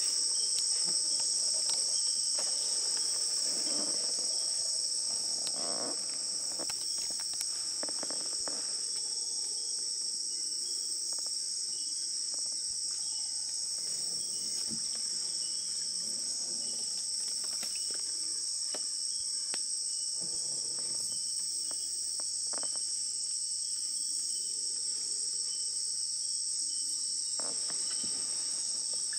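Continuous chorus of rainforest insects: an unbroken high shrill at two pitches together, with scattered faint clicks.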